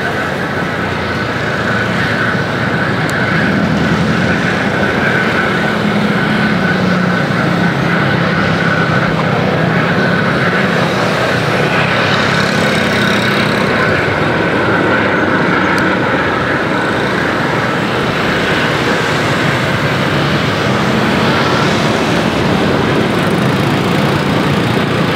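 Airbus A320 jet airliner's engines on approach: a steady rushing noise with a whine held at one pitch over a low wavering hum.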